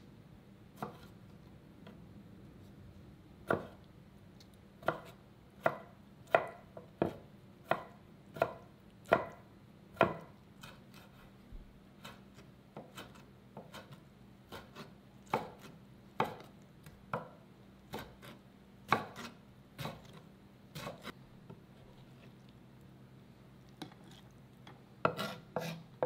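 Kitchen knife chopping kimchi on a wooden cutting board: sharp knocks of the blade on the board, about one a second in irregular runs, sparser in the middle, with a quick flurry near the end.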